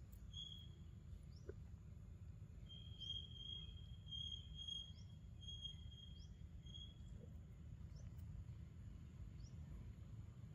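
Faint forest ambience: a steady high-pitched insect drone and a run of short thin high chirps from about half a second to seven seconds in, over a low steady rumble.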